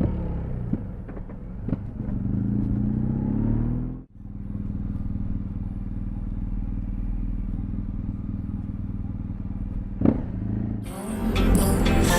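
BMW R1200 GS boxer-twin engine under way, its revs climbing for the first few seconds. About four seconds in the sound cuts abruptly, then the engine runs steadily at an even speed. A few short sharp pops from the exhaust are heard, and music comes in near the end.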